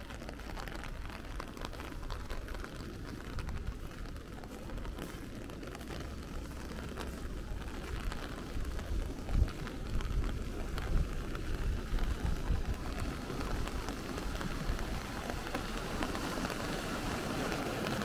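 Steady rain falling, growing a little louder toward the end, with a few low thumps around the middle.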